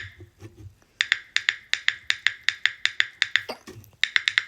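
A freshly opened, full can of Dr Pepper cream soda giving off a rapid run of sharp clicks, about five a second, starting about a second in and pausing briefly near the end.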